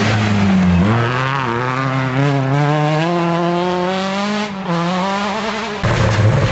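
Rally car engine revving hard and climbing in pitch as it pulls away from a bend on a gravel stage, with a brief drop at a gear change about four and a half seconds in. Near the end a second rally car's engine comes in, louder and lower.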